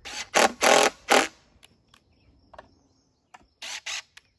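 Cordless drill driving long wood screws through a board into a stump, run in short trigger bursts: a quick run of bursts at the start, a pause, then two brief bursts near the end.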